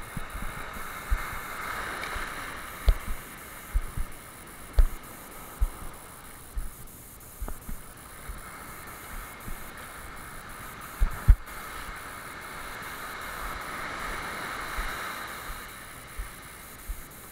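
Surf washing and rushing around a kayak in shallow water, swelling twice, with irregular low thumps throughout.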